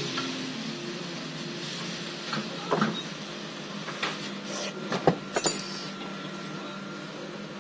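Several short clicks and knocks, about five over a few seconds, from small tools and phone parts being handled on a repair bench, over a low steady hum. Background music fades out near the start.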